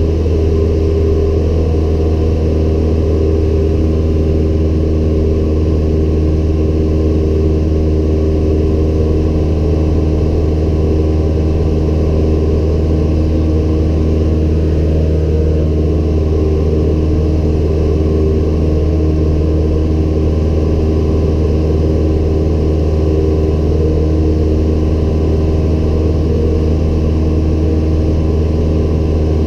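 Cessna 172M Skyhawk's four-cylinder Lycoming engine and propeller running steadily in flight, a loud, even drone heard inside the cabin.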